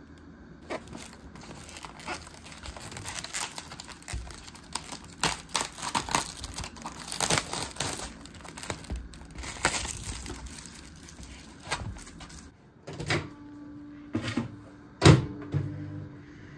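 Crinkling and tearing of the plastic wrap and film on a convenience-store bento box as it is opened, as a run of quick crackles. Near the end come a few hard knocks, one of them loud, over a steady low hum.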